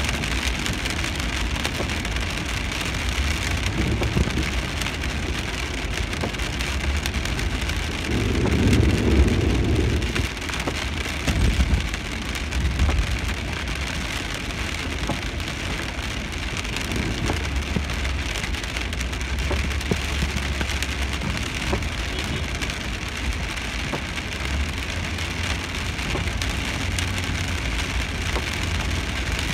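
Steady rain falling on a car's windscreen and roof, heard from inside the moving car over the low rumble of tyres on the wet road. A louder low rush swells for about two seconds some eight seconds in.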